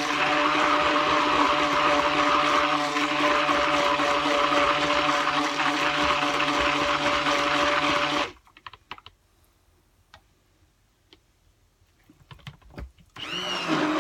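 Handheld stick blender motor running steadily, mixing colorant into soap batter. It cuts off a little over halfway through, leaving near quiet with a few light clicks, then starts up again near the end.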